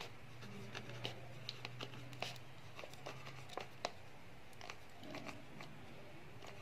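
Ballpoint pen writing on notebook paper: faint, irregular scratches and small ticks of the pen tip as the letters are formed.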